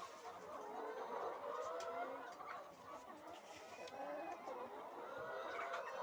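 A flock of laying hens clucking and calling over one another.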